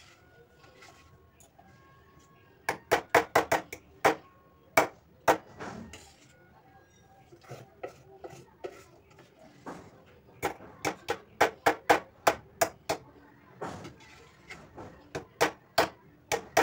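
Wire whisk clinking against the side of a stainless steel bowl as cake batter is beaten, in irregular runs of quick, sharp clinks with short pauses between.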